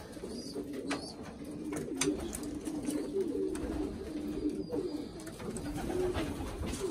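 Several pigeons cooing continuously in their loft, in low wavering rolls, with a few light clicks of movement among them.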